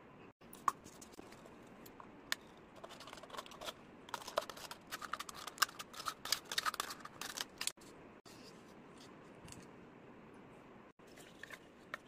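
Hands handling craft materials on a tabletop: light rustling and irregular sharp clicks, busiest in the middle few seconds, over a steady faint hiss.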